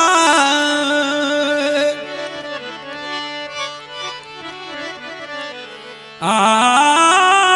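Instrumental opening of a Rajasthani folk song: a sustained melody played over a steady low drone, dropping softer about two seconds in and coming back loud about six seconds in.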